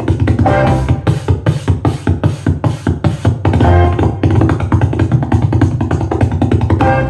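Music with heavy bass and a steady, fast drum beat played loudly through a portable Bluetooth speaker in a sound test.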